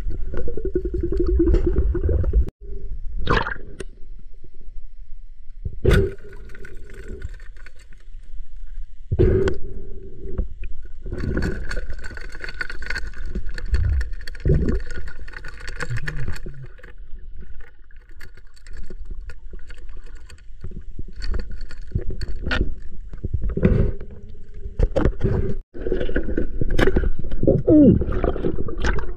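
Water sloshing and gurgling close to the microphone, broken by several sharp knocks, with two sudden brief dropouts.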